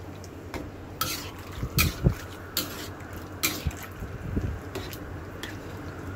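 Metal spatula scraping and clinking against a wok while stirring chunks of pork in a thick tomato sauce, with irregular sharp clinks every half second or so.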